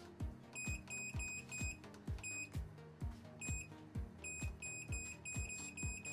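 Electronic stew pot's control panel beeping as its timer button is pressed again and again: short high beeps, some singly and some in quick runs. Under them, background music with a steady low beat about twice a second.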